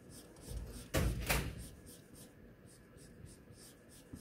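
Broad-tip marker scrubbing on paper in quick strokes, about four a second. A dull knock, struck twice in quick succession about a second in, is the loudest sound.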